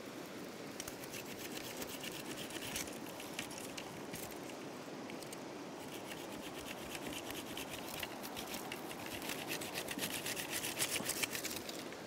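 A knife cutting into a green willow stem at its base, a rapid run of fine scratching, rasping strokes that grows denser and louder in the second half, over the steady rush of a stream.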